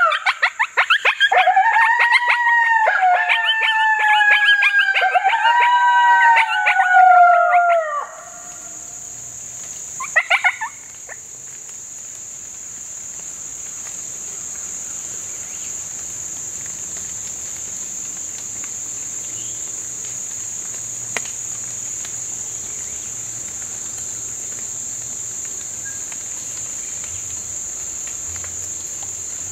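Coyote howls and yips from a FoxPro electronic caller playing a coyote duet, joined by a mouth-blown diaphragm howler, loud and wavering in pitch for about eight seconds before cutting off. After that a steady high insect drone takes over, with a brief faint call about ten seconds in.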